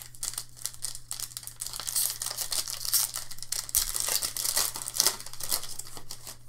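Foil wrapper of a Bowman Chrome football card pack crinkling and tearing as it is peeled open by hand, a dense run of crackles, over a steady low hum.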